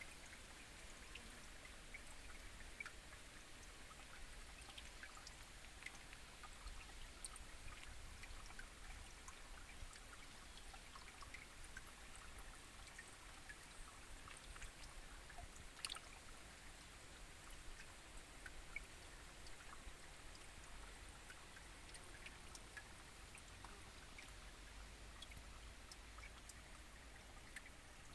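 Faint trickle of shallow stream water over rocks, with scattered small drips and plops and one sharper tick a little past halfway.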